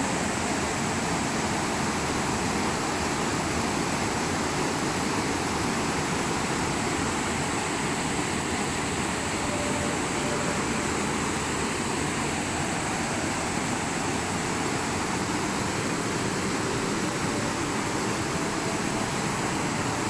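Waterfall and rapids: a steady rush of white water pouring over rock ledges.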